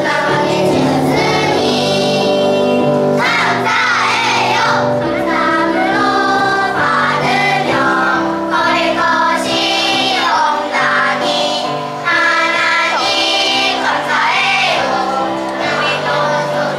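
A class of first-grade children singing a song together as a group.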